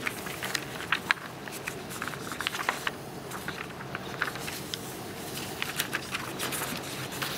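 Large-hall room tone with many small scattered clicks, taps and rustles from a seated audience handling phones and things on the tables.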